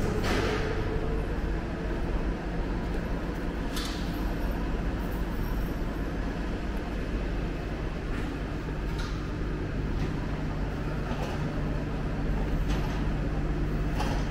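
Steady low rumble of transit vehicles with a droning hum beneath it, and a few sharp clicks scattered through.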